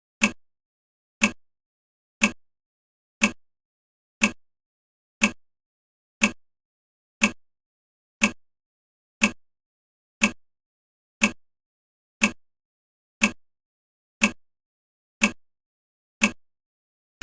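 Countdown timer's clock tick sound effect: one sharp tick every second, evenly spaced.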